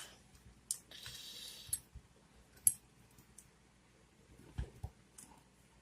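Scattered light clicks and knocks from a padlock and picking tools being handled, with a brief rustle about a second in.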